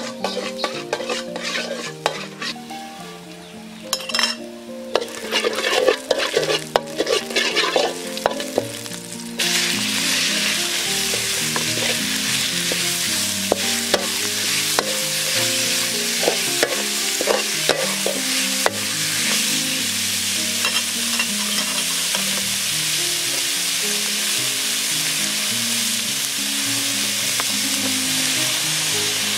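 A metal ladle scrapes and clicks against a steel wok. About nine seconds in, a loud, steady sizzling starts suddenly as chopped raw meat goes into the hot oil, and it keeps frying while being stirred.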